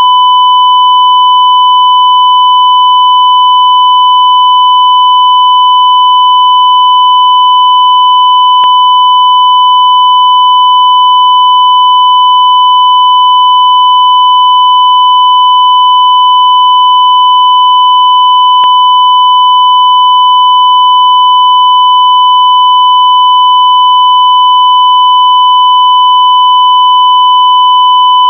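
Censor bleep: one continuous, loud, steady beep tone held at a single pitch without a break.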